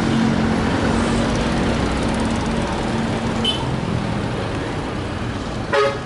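Road traffic crossing in front of the microphone: a light truck's engine and motorcycles running past, with a steady low engine hum that fades out about halfway. Near the end comes a short, loud vehicle-horn beep.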